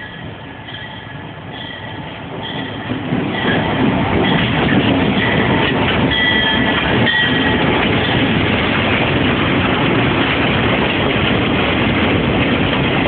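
A train drawing close and passing by. Its rumble grows louder over the first four seconds and then holds loud and steady, with thin high tones over it until about seven seconds in.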